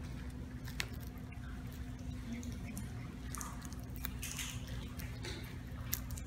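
Quiet handling sounds: a few small clicks and soft rustles over a steady low hum, as a communion cup is drunk from and then set down on the altar table.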